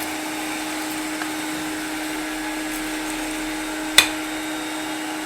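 Vacuum cleaner running steadily, drawing air through a homemade cyclone dust separator, with a constant motor hum and whine. A single sharp click about four seconds in.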